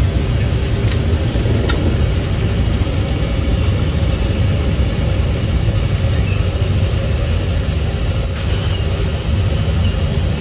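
Chicken deep-frying in oil in a wok over a gas burner: a steady low rumble under a sizzling hiss, with two sharp metallic clicks about a second and two seconds in.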